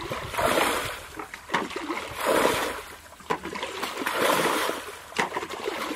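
Water sloshed and splashing as a bucket is dipped into a shallow muddy pool and flung out, bucketful after bucketful, with a splash about every one to two seconds.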